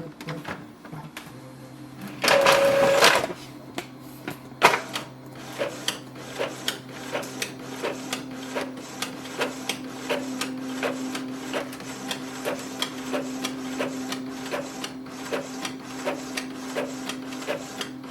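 Epson EcoTank ET-2400 inkjet printer running a colour copy. About two seconds in there is a loud mechanical whir lasting about a second. Then comes a steady motor hum with regular clicks about twice a second, as the print head carriage sweeps back and forth printing.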